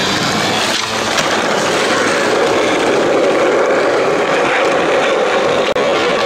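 Skateboard wheels rolling over rough asphalt, heard close up: a loud, steady rolling rumble.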